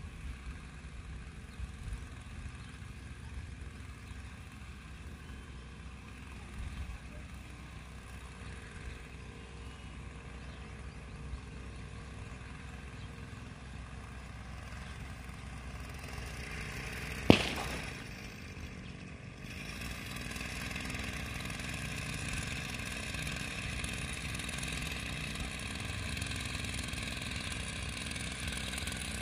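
Small engine of a knapsack power sprayer running steadily at a distance. One sharp click sounds about two-thirds of the way through, and the engine grows slightly louder near the end.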